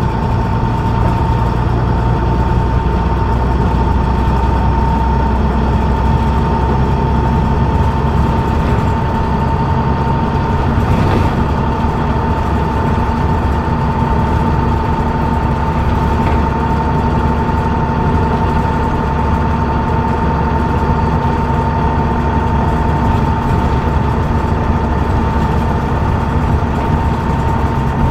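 Leyland O.680 six-cylinder diesel engine of a Leyland Atlantean AN68 double-decker bus running under way, heard from inside the bus, with a steady high whine over the engine note.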